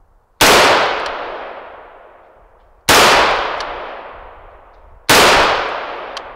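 Three shots from a scoped AR-style rifle firing .223 ammunition, the second about two and a half seconds after the first and the third about two seconds later. Each is a sharp crack followed by a long echo dying away.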